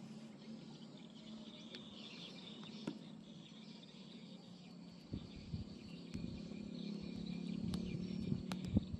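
Outdoor ambience of insects chirping steadily over a low, even hum. From about halfway through come irregular low thumps and rumbles, with a few sharp ticks near the end.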